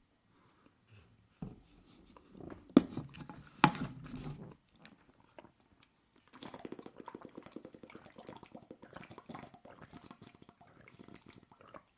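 Close-miked chewing of aubergines in sunflower oil: two sharp clicks about three and four seconds in, then steady fast chewing through the second half.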